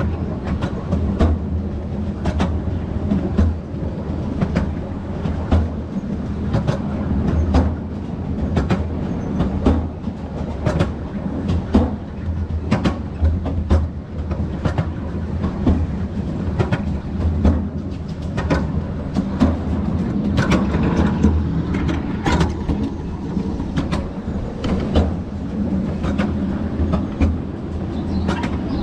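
Miniature railway train running along its track, heard from on board: a steady low rumble of the carriages, with the wheels clicking over the rail joints about once or twice a second.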